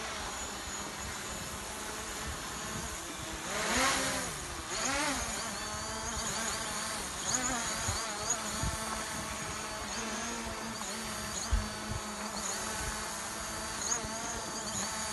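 DJI Mavic Pro quadcopter's propellers buzzing as it hovers close overhead, the pitch bending up and down about four and five seconds in as it shifts position.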